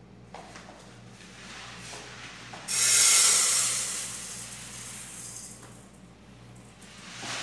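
Uncooked rice poured from a plastic sack into a metal pot: a sudden loud rushing hiss of grains about a third of the way in, tapering off over several seconds as the pour slows.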